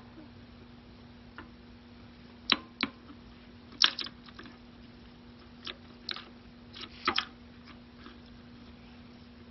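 Small flathead screwdriver tip prying and scraping under the lock cylinder of a chrome locking gas cap, giving irregular sharp metal clicks and ticks, a few in quick pairs, the loudest about two and a half and four seconds in.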